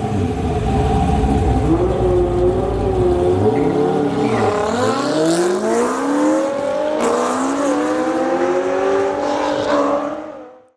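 Car engines revving hard and accelerating, their pitch climbing, with one drop and climb again as a gear shifts. The sound fades out near the end.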